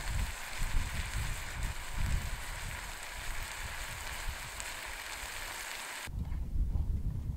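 Noodles, Polish sausage slices and vegetables sizzling in a frying pan, a steady hiss, with wind rumbling on the microphone underneath. The sizzle stops suddenly about six seconds in, leaving only the wind.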